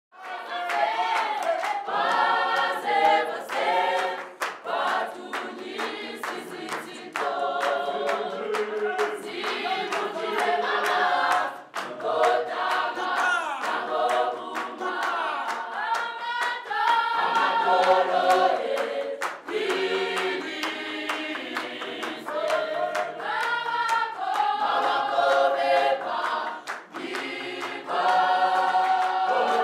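A choir of mixed voices singing together in harmony, with sharp percussive claps or taps running through the singing.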